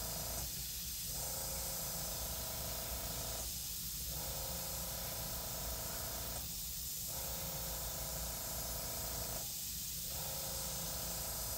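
GSI Creos gravity-feed airbrush spraying paint in short dagger strokes, a steady hiss of air that dips briefly about every three seconds.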